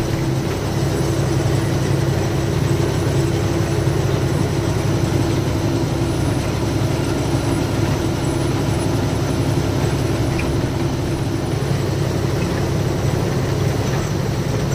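Diesel engine of an Ashok Leyland goods truck running steadily on the move, heard from inside the cab as a constant low drone over an even hiss of road noise.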